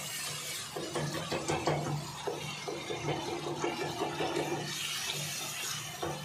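Wooden spoon stirring and scraping a thick tomato-and-spice masala around an aluminium pot in a quick run of strokes, with the masala bubbling in its oil.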